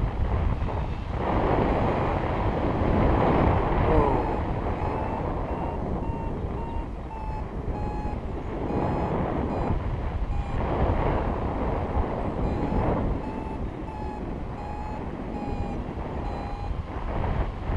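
Wind rushing over the camera microphone, loudest in the first few seconds, and from about four seconds in a paragliding variometer beeping in short regular pips, about two a second, its pitch shifting slightly: the climb tone that signals the glider is rising.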